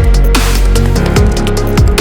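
Electronic drum and bass background music with a fast, steady beat and heavy bass.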